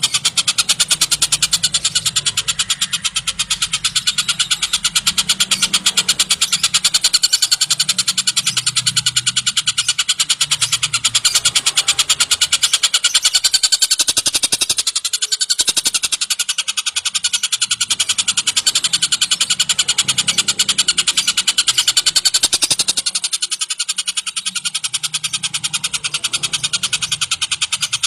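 Tengkek buto kingfisher calling in a rapid, unbroken series of chattering notes, many a second, with a short break about halfway through.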